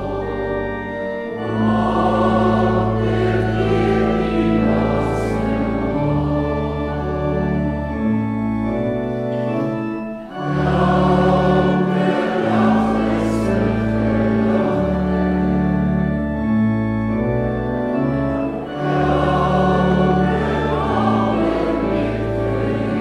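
A group of voices singing church music with organ accompaniment, the organ holding long bass notes that change every second or two, with a short break between phrases about ten seconds in.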